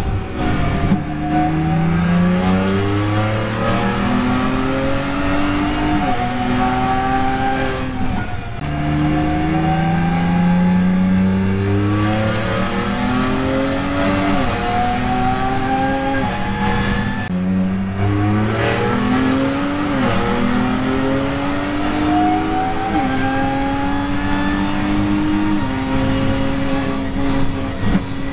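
BMW M2 Competition's twin-turbo straight-six at full throttle on track, accelerating hard through the gears: the engine pitch climbs steadily in each gear and drops sharply at every shift, again and again, with a couple of deeper dips where it comes off the throttle.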